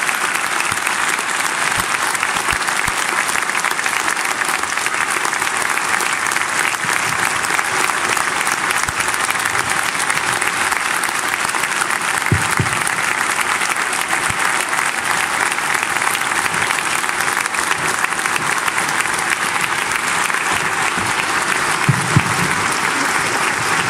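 A large theatre audience applauding steadily for a long stretch, many hands clapping at once.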